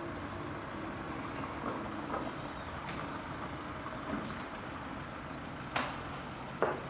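A vehicle engine running steadily, with a faint short high chirp repeating about once a second. Two sharp clacks come near the end.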